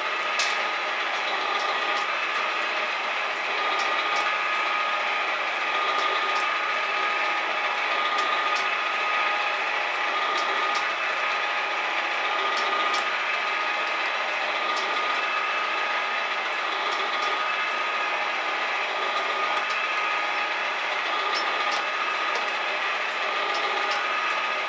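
Metal shaper running and cutting into a salvaged conveyor drive roller: a steady mechanical running sound with a steady whine and scattered light clicks.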